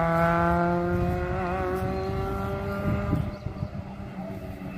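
Race car engine at high revs, its pitch sliding slowly downward, then cutting away about three seconds in.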